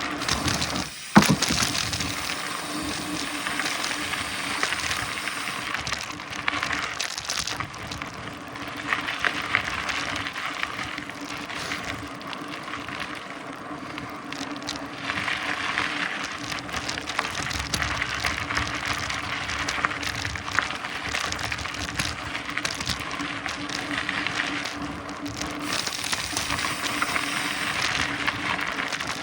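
Mountain bike rolling over a dirt trail: steady tyre noise on dirt and gravel with rattles from the bike. There is a sharp knock about a second in as the bike lands off a small ramp.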